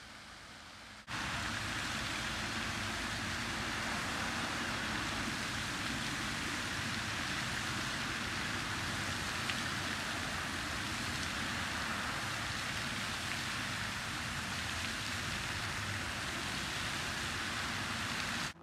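Many ornamental fountain jets spraying and splashing down into a basin: a steady rushing hiss of falling water that starts abruptly about a second in.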